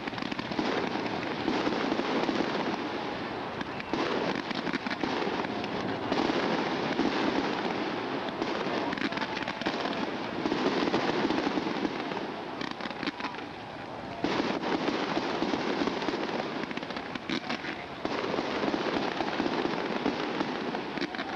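Fireworks going off: a dense, continuous crackling and popping that keeps on without a break.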